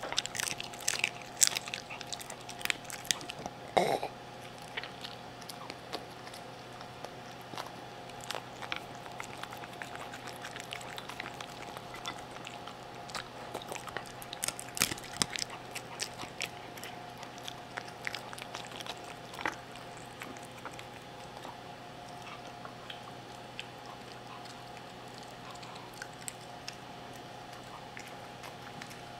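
A poodle crunching food close to a microphone, with a single loud throaty burp about four seconds in. After that, softer scattered chewing and licking clicks as it licks the bowl, thinning out toward the end.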